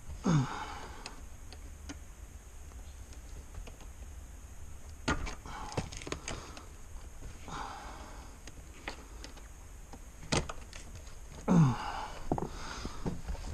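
A man grunting with effort while working on a car interior, two short falling grunts, the louder near the end, among scattered clicks and knocks of hand tools and parts.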